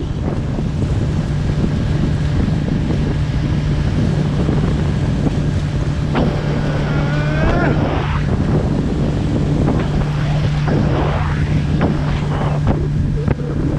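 Small fishing boat's engine running steadily under way, with wind buffeting the microphone and sea water rushing and splashing around the hull in rough conditions.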